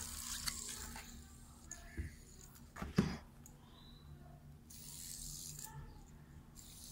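Faint whir of a smooth-running fidget spinner spinning in the hand, with a few handling clicks and a sharper knock about three seconds in.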